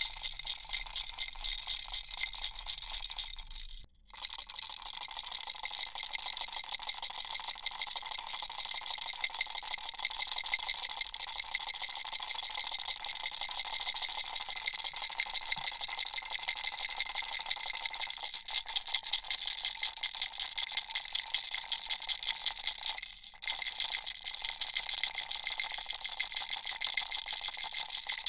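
Baby rattle shaken quickly and steadily, its beads making a dense, even rattle. The rattling breaks off briefly twice, about four seconds in and again about five seconds before the end.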